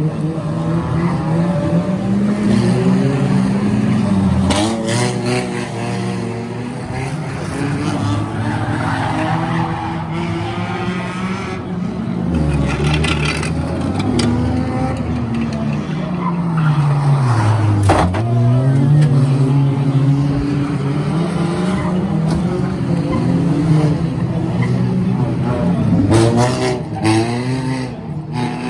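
Banger racing cars' engines running and revving as they race past, the pitch sinking and climbing again as they lift off and accelerate, with tyres sliding on the shale. A few sharp knocks, about five seconds in, in the middle and near the end, stand out above the engines.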